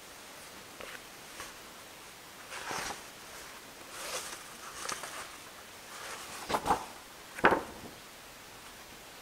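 Pages of a small book being leafed through and handled: a series of soft paper rustles, the two loudest about six and a half and seven and a half seconds in.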